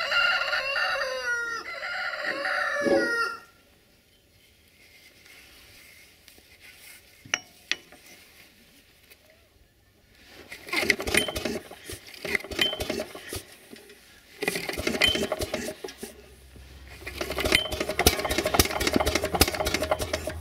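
A rooster crows for about three seconds. After a quiet stretch, the cold single-cylinder Lombardini LAP 490 petrol engine of a BCS 20000 mower is pull-started with its recoil rope in several clattering pulls. In the last few seconds it catches and runs with a low, steady hum.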